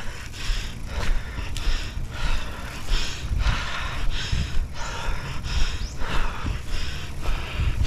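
A person panting hard, about two quick, heavy breaths a second: out of breath from walking a mountain bike up a steep grassy slope.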